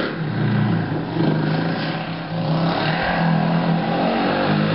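Sport ATV engine running and revving as it is ridden, heard from a distance. The engine note shifts with the throttle and changes abruptly about three seconds in.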